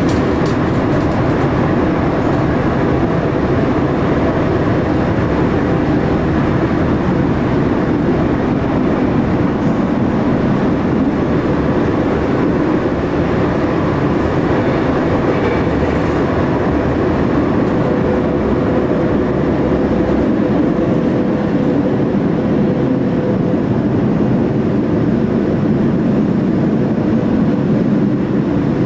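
Lisbon Metro train running, heard from inside the carriage: a steady, loud rumble of wheels and running gear, with a faint steady whine in the middle stretch.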